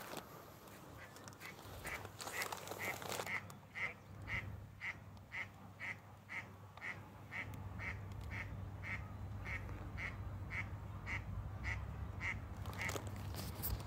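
A bird calling a long even series of short, identical notes, about two a second. A brief rustle comes about two seconds in and again near the end.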